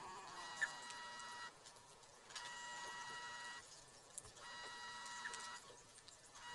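A steady high-pitched electronic tone, several pitches sounding together, repeating in a pattern of about a second on and a second off. Faint clicks come in about half a second in and again past four seconds.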